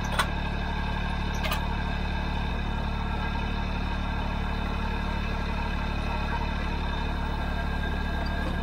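Kubota L3901 tractor's three-cylinder diesel engine idling steadily, with a sharp click just after the start and another about a second and a half in.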